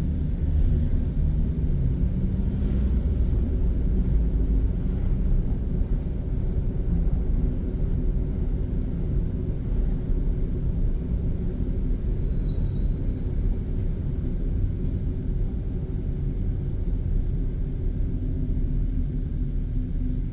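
Car being driven on city streets: a steady low rumble of engine and road noise.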